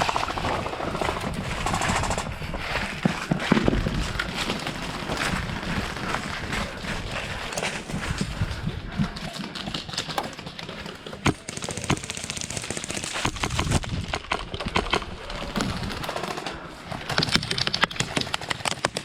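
Airsoft guns firing in rapid bursts, a dense run of sharp clicking shots that comes in clusters, thickest about two-thirds of the way in and near the end.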